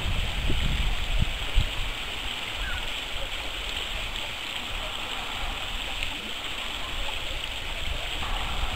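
Steady rushing of flowing open water in a partly frozen stream, with some low rumble in the first two seconds.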